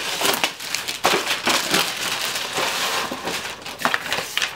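Packaging crinkling and rustling as a parcel is torn open by hand and its wrapping and paper sheets pulled out, with many quick crackles and rips.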